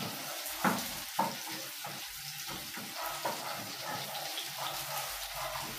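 Sliced red onions sizzling in a little oil in a frying pan as they are stirred and browned, with two sharp knocks of the stirring utensil against the pan about a second in.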